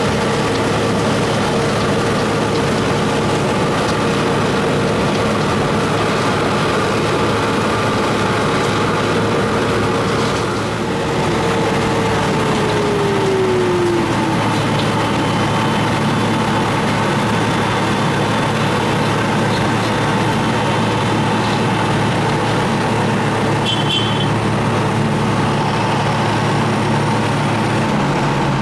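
Wirtgen W100 Fi cold milling machine running under load as its drum mills asphalt and its conveyor loads the millings: a loud, steady heavy-machinery din with a low hum. A steady tone in it slides lower about twelve seconds in.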